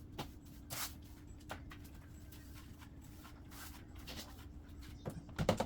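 Dishes being washed by hand: scattered faint scrubbing strokes, then a louder clatter of dishes and utensils about five seconds in, over a steady low hum.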